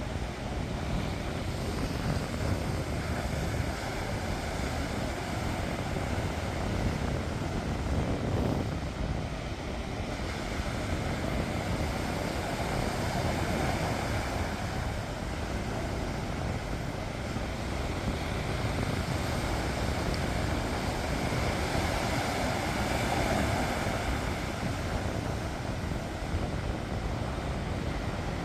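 Sea surf washing on the shore: a steady rushing noise with a deep low rumble that swells and eases slowly.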